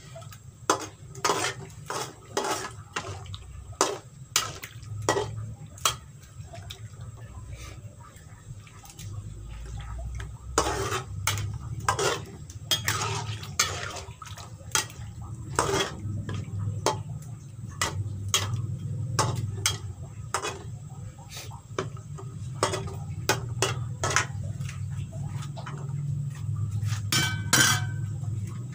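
Long metal spatula knocking and scraping against a non-stick wok while stirring chicken in curry sauce, in irregular clicks and taps, over a steady low hum.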